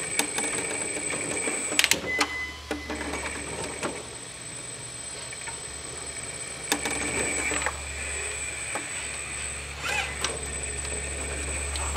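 Electric drive of a heavy 1/14-scale RC4WD mining truck whining steadily as it creeps up a plywood ramp onto a wooden foundation, with several sharp clicks and knocks from the wooden ramp and framing under its weight.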